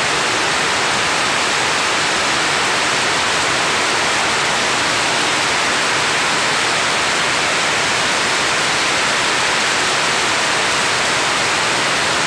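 A loud, steady rushing hiss that does not change.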